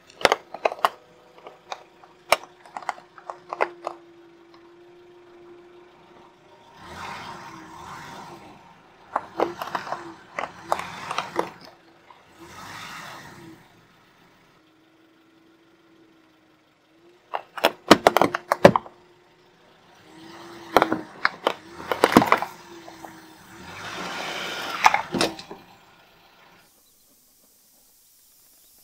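A car tyre pressing down on a wooden board studded with upright nails: repeated sharp cracks and snaps from the wood and nails, with stretches of crunching, over a low steady car engine hum. The loudest cracks come in two clusters about two thirds of the way through, and the sound stops a couple of seconds before the end.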